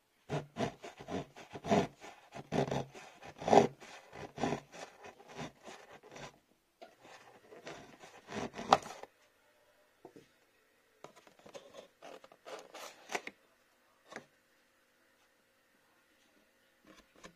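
A serrated table knife sawing through the paper seal sticker and cardboard edge of a pastry box in many quick strokes for about nine seconds, then a few shorter scrapes of cardboard as the box is opened.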